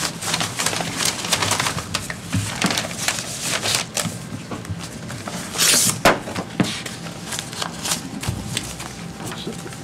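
Paper rustling and small clicks from bid envelopes and documents being handled at a table, with a brief louder rustle about six seconds in.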